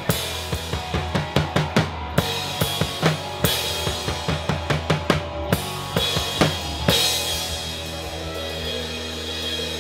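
Live rock band playing an instrumental passage: drum kit with kick and snare beating steadily under electric guitars and bass. About seven seconds in the drumming stops and the guitars and bass hold ringing chords.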